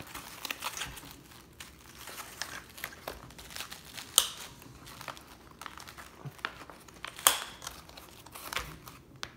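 Nylon tactical gear being handled: a pouch placard rustling and scraping as it is fitted to a plate carrier, with two sharp clicks about four and seven seconds in.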